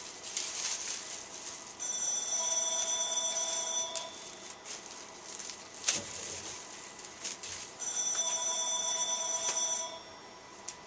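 Telephone ringing twice, each ring lasting about two seconds and the second starting about six seconds after the first. Plastic wrap rustles under the rings, and there is a sharp click about six seconds in.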